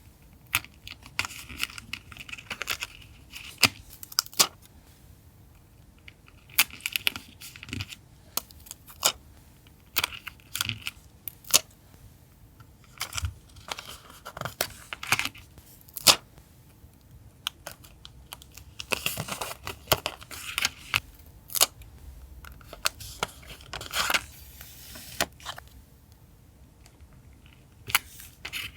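Paper being handled and torn for a journal collage: irregular crinkles and tears with sharp taps and clicks, separated by short quiet gaps.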